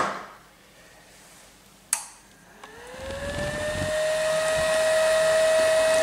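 Circuit breaker snapping on, then a second click about two seconds in. The Delta VFD-E drive's cooling fan then spins up with a rising whine that levels off into a steady hum.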